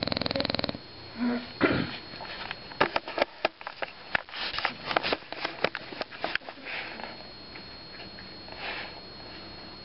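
Dog snoring and snuffling in its sleep: a rattling snore at the start, then a few seconds of quick short snorts and clicks, easing into softer breaths.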